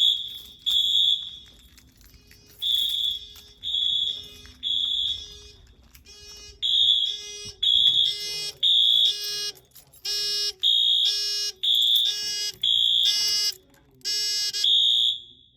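Wheelock MT fire alarm horns on a Simplex 4020 system sounding the temporal-3 evacuation pattern: three short tones, a pause, then three again. About six seconds in, a second, buzzier horn joins out of step. The horns cut off near the end as the system is reset from the annunciator.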